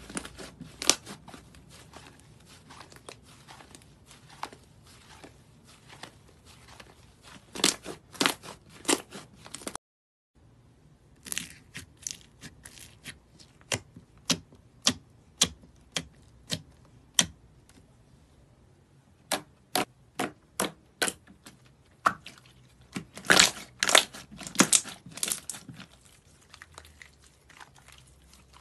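Slime being squeezed, poked and stretched by hand, making a series of sharp sticky clicks and pops. After a brief break about ten seconds in, the pops come in a steady run of about one a second, then thicken into dense clusters near the end.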